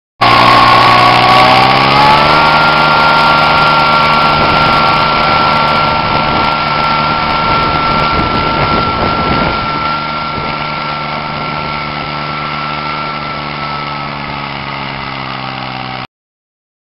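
Kubota three-cylinder diesel in a Bush Hog JB1 garden tractor running, rising in pitch over the first two seconds and then holding a steady speed, with a steady high whine above the engine note. It grows gradually quieter and cuts off suddenly near the end.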